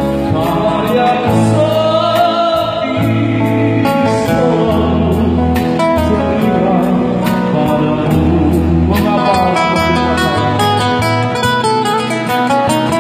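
Live band performing a Batak-language pop song, with a male voice singing over strummed guitars and a drum kit through a PA system.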